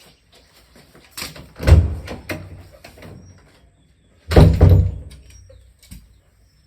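A person coughing hard in two fits, the first about a second in and the second, loudest, past four seconds.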